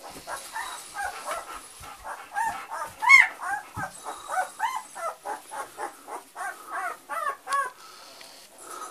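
Young puppies squealing and whining in a rapid run of short, arching cries, several a second, with one louder squeal about three seconds in. The cries stop shortly before the end.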